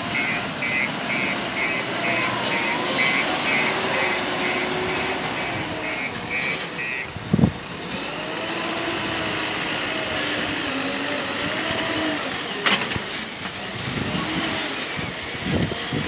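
JCB 3DX backhoe loader's diesel engine running under work, with its reversing alarm beeping about twice a second for the first seven seconds. A sudden heavy thump comes about seven seconds in, and a few sharp knocks near the end.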